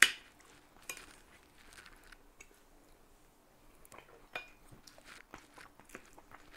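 A metal spoon clinks sharply against a ceramic plate once at the start, then quiet eating sounds follow: soft chewing and a few small spoon ticks on the plate as it cuts into a cabbage roll.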